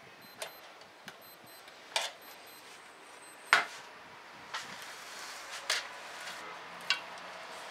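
Scattered sharp metallic clicks and clanks, about seven in all, as aluminium frame parts, screws and hand tools are handled and set down on the workbench; the loudest knock comes about halfway through.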